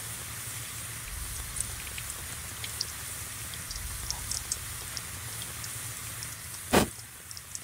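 Burning candle wick: a steady hiss with scattered small crackles and ticks, and a single loud, sudden thump a little before the end.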